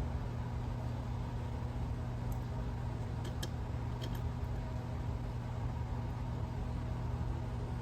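Steady machine hum with a few light clicks a couple of seconds in.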